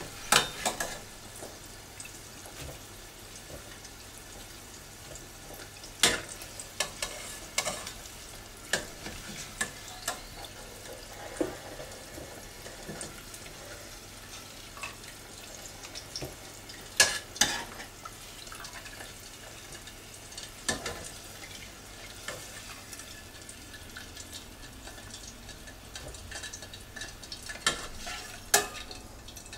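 Potato wedges par-frying in a saucepan of hot oil with a steady faint sizzle, and sharp clinks now and then as metal tongs and a spoon knock against the stainless steel pan while the wedges are lifted out.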